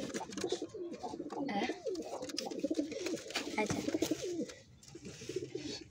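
Domestic pigeons cooing in a loft: repeated low, wavering coos overlapping one another, with a few light knocks.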